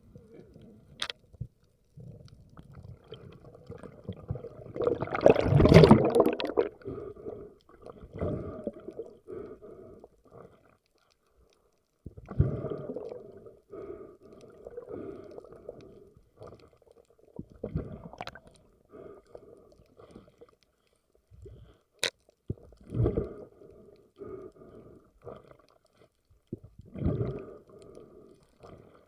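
Water gurgling and sloshing in irregular muffled bursts, loudest about five seconds in, with a few sharp clicks.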